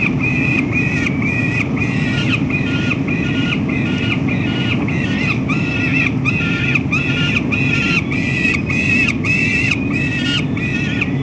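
Peregrine falcon calling in a long, unbroken run of harsh repeated notes, about two or three a second, over a steady low rumble.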